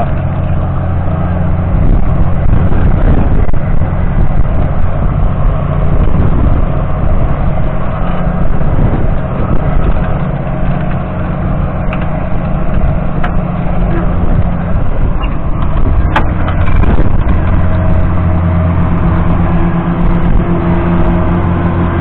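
John Deere 7710's 8.1-litre six-cylinder diesel engine running loud and steady under heavy load, pulling a reversible deep plough through the soil. There are a few sharp clicks partway through, and the engine note changes near the end.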